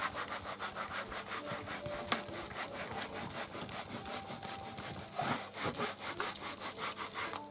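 Baren rubbed briskly over gampi paper laid on an inked end-grain wood engraving block, an even scrubbing of several short strokes a second, pressing the ink into the paper to take the print.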